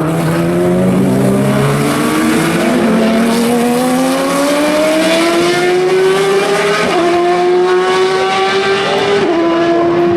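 A Le Mans race car accelerating hard, its engine pitch climbing steadily through a long gear, then dropping sharply at two upshifts about seven and nine seconds in.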